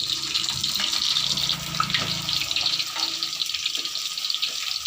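Cassava frying in hot oil, a steady dense sizzle and crackle.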